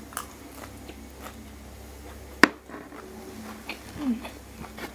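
A person chewing a mouthful of stir-fried small shrimp and rice close to the microphone, with faint small mouth clicks. There is one sharp click about halfway through.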